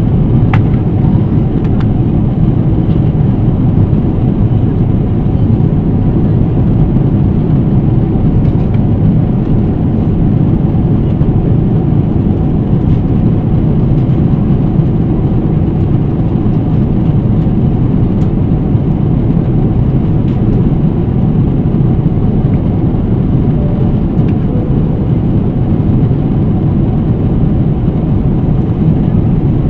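Steady airliner cabin noise of a Boeing 777-300ER at cruise altitude: an even, deep rush of airflow and engines that does not change.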